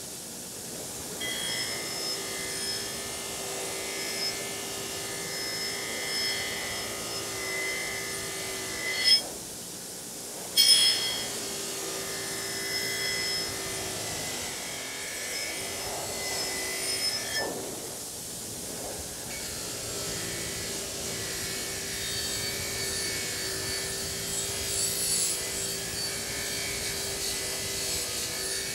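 Bench grinder's wire wheel running and scrubbing rust off a steel double bit axe head, a steady hum and scraping that dips for a moment a few times as the head is lifted and repositioned. Two sharp knocks come a little after nine and ten seconds in.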